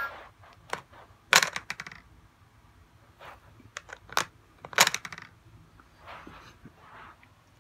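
Hard plastic clicking and clattering from a toy train set's station lever being worked by hand, a string of sharp clicks with two louder snaps a few seconds apart.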